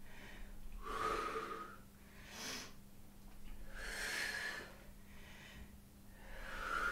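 A woman breathing audibly while doing push-ups: three long breaths a couple of seconds apart, with a short, sharper breath between the first two.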